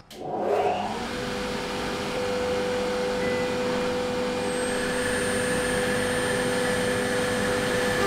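Dust extractor switched on with a click and running steadily. About halfway in, a high steady whine joins as the CNC router's water-cooled spindle starts up for the cut.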